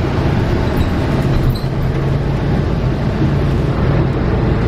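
Steady road traffic noise, a vehicle engine hum running under a continuous rushing sound.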